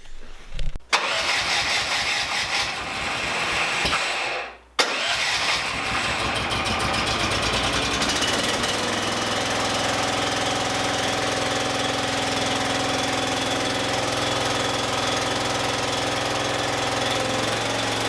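A 420cc single-cylinder engine, newly fitted to an MTD 990 lawn tractor, is key-started: the electric starter cranks it for about three seconds, stops briefly, then cranks again. About 6 s in the engine catches, picks up speed and settles into steady running.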